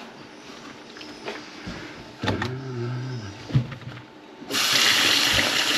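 Kitchen tap turned on about three-quarters of the way through, water then running hard and steadily into the sink. Before it there is a short low-pitched sound and a single sharp knock.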